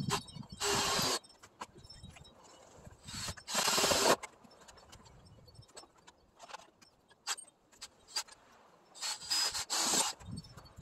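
Cordless drill driving screws into a wooden frame in short runs: one near the start, a longer, louder one about three to four seconds in, and two quick ones near the end. Small handling clicks come between the runs.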